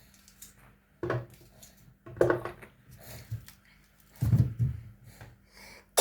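Kitchen handling sounds: a handful of separate knocks and clatters of dishes and utensils being moved and set down on the counter, about one a second, the heaviest knock a little after the middle.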